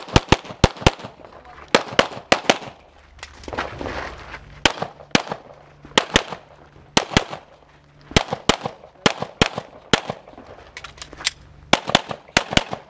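Pistol shots fired rapidly, mostly in quick pairs and short strings, with brief pauses between groups as a competitor shoots through a timed practical-shooting stage.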